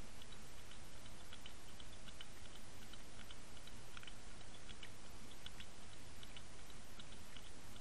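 Steady rush of water over an underwater camera housing towed on a trolling line, with light, irregular ticking several times a second.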